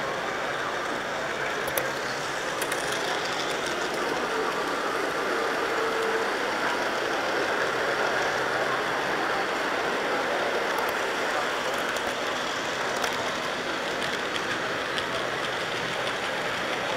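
Steady rolling noise of an HO scale model train running along its track, heard from a camera riding on the train, with a few faint clicks along the way.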